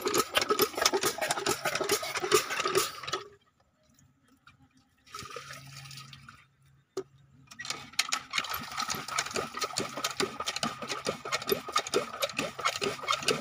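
Single-cylinder diesel engine of a shallow-tubewell irrigation pump running with a rapid, even knocking, while water is poured into the pump to prime it. The sound drops almost to nothing about three seconds in and returns at full strength about eight seconds in.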